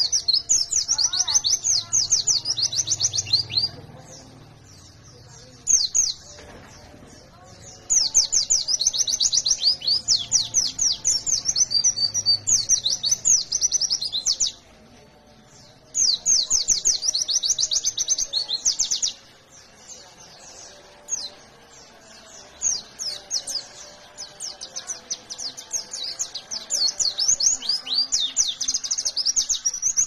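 White-eye (pleci) singing a fast, rapid-fire song of dense high twitters. It comes in long bursts of several seconds, with gaps of a second or two between them.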